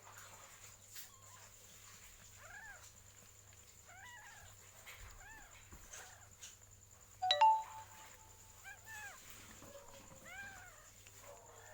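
Cat mewing: a series of short, thin mews, each rising then falling in pitch, coming in small clusters. About seven seconds in there is a brief, louder sound at one steady pitch.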